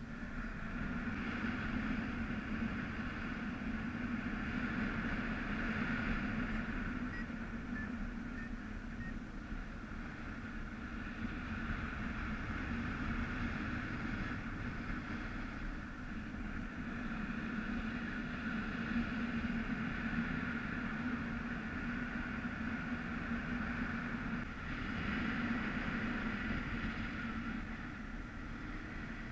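Airflow rushing over the microphone during a paraglider flight: a steady rumbling wind noise that swells and eases every few seconds.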